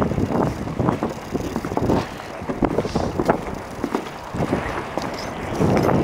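Wind buffeting the microphone: an irregular low rumble with gusty surges, louder again near the end.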